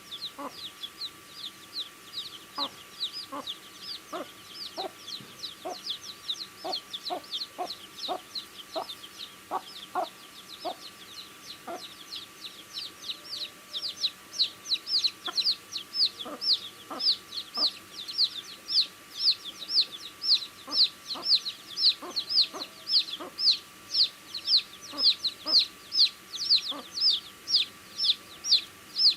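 Baby chicks peeping, a continuous run of short, high, falling chirps, growing louder about halfway through. Soft taps sound under the chirps in the first half.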